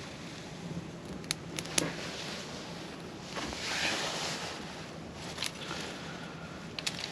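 Small wood fire crackling, with a handful of sharp pops scattered through it, over a steady rushing noise that swells for about a second near the middle.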